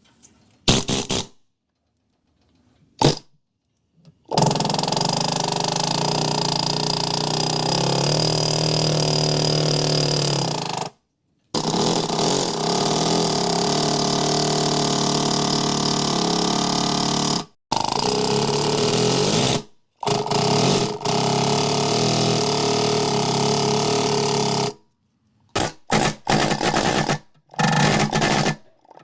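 A handheld power tool running in runs of several seconds, switched off and on again between them, ending in a few short bursts near the end. A couple of sharp knocks come first.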